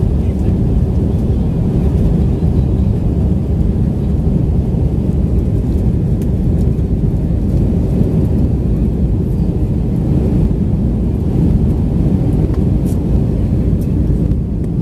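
Steady low rumble of a jet airliner's engines and rushing air, heard from inside the passenger cabin in flight.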